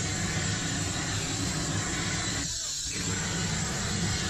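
Handheld gas flamethrower burning with a loud, steady rushing hiss as it sears chunks of tuna on a grill. The noise thins briefly about two and a half seconds in, then carries on.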